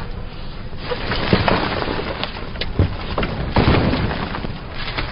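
Battle din of a war-film soundtrack: a rough continuous noise broken by many sharp cracks and a few heavier thuds.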